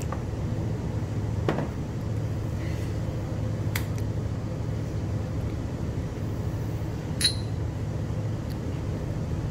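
Steady low hum of restaurant background noise, with a few light knocks and one short, ringing clink of glass about seven seconds in.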